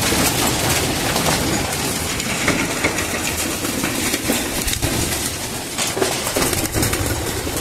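A flock of racing pigeons scrambling to a grain trough at feeding time: dense wing flapping and many quick ticks of pecking and feet on the wire grate, with pigeon calls mixed in.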